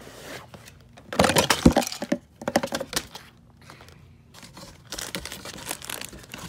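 Sealed plastic bags of LEGO pieces and the cardboard set box being handled, crinkling and rustling in irregular bursts, the loudest about a second in.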